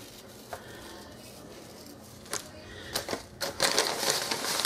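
Kitchen handling noise: a few sharp clicks and knocks, then a rattling clatter from about three and a half seconds in, as a baking sheet is put into the oven.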